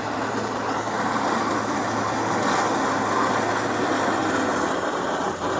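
Snowplow truck passing along the street, a steady rushing vehicle noise that swells to its loudest a few seconds in.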